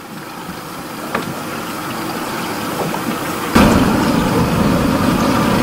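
Boat engine running, growing gradually louder, with a sudden jump in loudness about three and a half seconds in.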